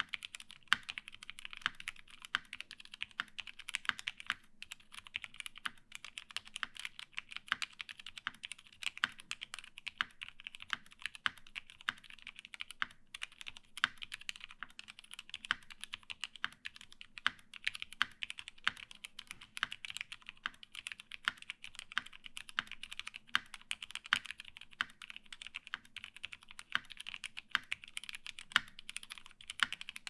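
Steady typing on an MC-76K "Fat Boy" mechanical keyboard with an aluminium top, lubed vintage Cherry MX Black linear switches, GMK doubleshot ABS keycaps and no sound dampening: a dense run of bright keystroke clacks, some louder than others, with a brief pause now and then.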